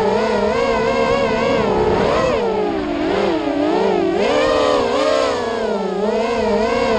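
Racing quadcopter's electric motors and propellers whining, the pitch rising and falling with the throttle and dipping lower about halfway through.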